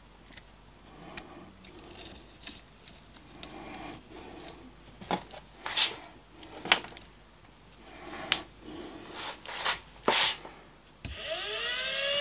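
Rustling, scraping and sharp clicks of wire ends being handled and twisted together by hand. About eleven seconds in, a washing-machine universal motor powered from a 12 V battery starts and spins up with a whine that rises in pitch and grows louder.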